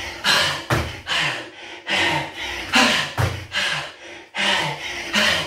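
Bare feet landing from tuck jumps on foam floor mats, a thud every second or so, with hard, breathy exhalations between the landings.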